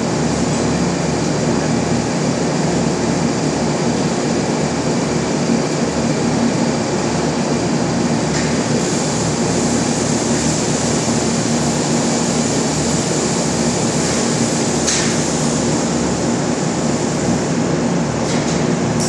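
Steady din of machinery running on a steel-fabrication factory floor: dense, even noise over a low hum, with a brief sharper sound about fifteen seconds in.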